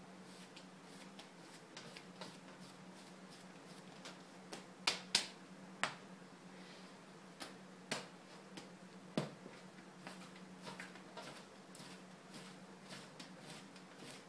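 Clay being spiral-wedged by hand on a wooden wedging table: a run of soft, repeated pushes and rolls, with a few sharper clicks and slaps about five to nine seconds in. A steady low hum underneath.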